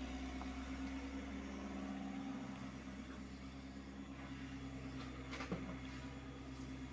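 Hyundai R80-7 mini excavator's diesel engine running steadily while it digs, with a single sharp knock about five and a half seconds in.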